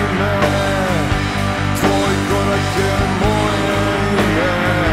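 Rock band playing live: electric guitars, bass and drum kit, with a lead melody sliding between notes and a crash from the drums about two seconds in.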